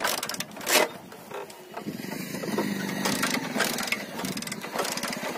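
Irregular sharp clicks and cracks of hands forcing at a parked Hero Honda motorcycle's handlebar and ignition lock. The loudest click comes near the start.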